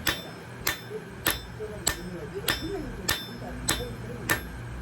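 Blacksmith's hammer striking on an anvil in a steady rhythm, eight ringing blows about 0.6 seconds apart.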